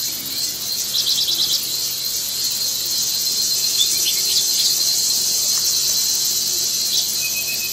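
Loud, steady, high-pitched chorus of forest insects such as cicadas or crickets, with a short run of rapid chirps about a second in.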